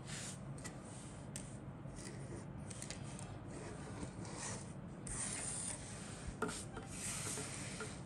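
Handling noise of plastic model-kit sprues being turned in the hands: rubbing and rustling with scattered light clicks, louder for a moment about five seconds in.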